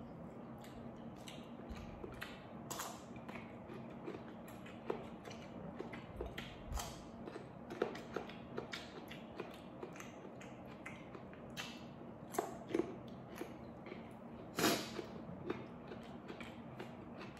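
A man chewing food with his mouth and picking at fried fish with his fingers on a stone plate: irregular small smacks, clicks and taps, one louder near the end, over a faint steady low hum.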